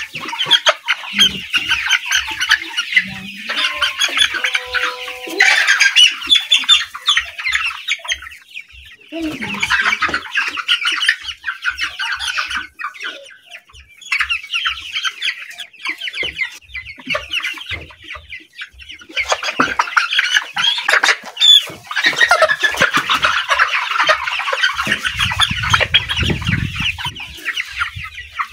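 Chickens clucking and squawking in long, rapid stretches with a few short pauses, as hens are held and handled for a fowl typhoid vaccine injection.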